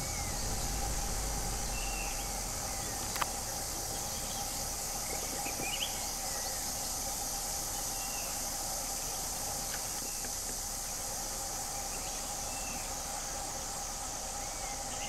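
Forest insects droning steadily in a high continuous hiss, with a few short high chirps and a single sharp click about three seconds in.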